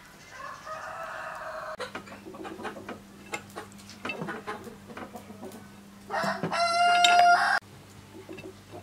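A rooster crows, one loud, long, steady call of about a second and a half starting about six seconds in, after a shorter, fainter call near the start. Small clicks and taps come and go throughout.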